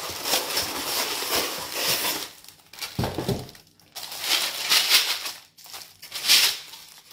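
Tissue paper crinkling and rustling as tissue-wrapped glass pieces are worked out of a styrofoam packing insert, in irregular bursts with short pauses.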